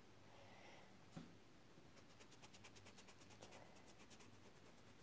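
Faint, quick scratching of a red oil pastel stroked back and forth on sketchbook paper, starting about two seconds in and going on in an even rhythm.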